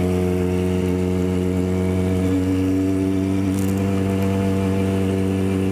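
Motorcycle engine running at a steady cruising speed, its pitch holding nearly constant, over a steady hiss of wind.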